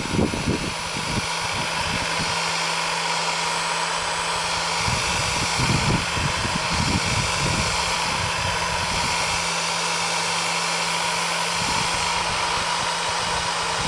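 Electric heat gun blowing steadily, a constant rushing of air with a steady fan hum, switched on just before. Irregular low rumbles come and go near the start and again about five to eight seconds in.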